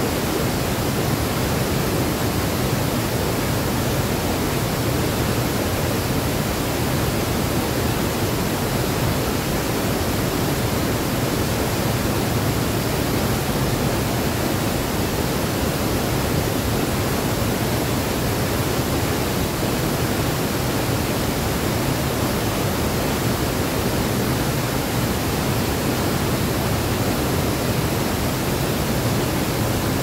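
A high waterfall in spate, swollen with muddy runoff, pouring over its drop: a steady, unbroken rush of water.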